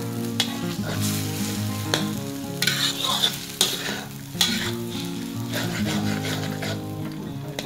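Glass noodles and egg sizzling in a metal wok while a slotted metal spatula stirs and scrapes them, with a sharp scrape or knock of the spatula against the pan about once a second.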